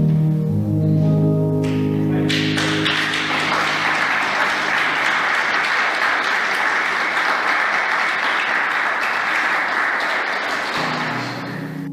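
Held chords of a keyboard piece ring out, then about two seconds in a small audience breaks into applause. Near the end the clapping fades as keyboard notes start up again.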